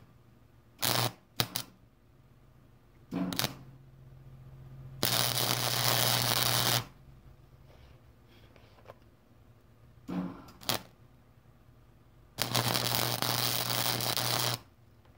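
Electric arc welding on the steel bracket of a car power seat frame: the arc crackles in several short tack welds, then in two longer beads of about two seconds each. A low hum from the welder sounds under and between the welds.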